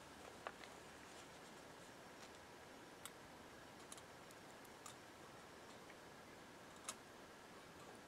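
Near silence with about six faint, sharp clicks scattered through, the two loudest about half a second in and near the end.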